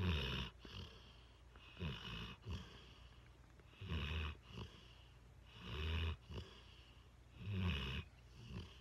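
A large mastiff-mix dog snoring in its sleep, a rasping snore about every two seconds in a steady rhythm.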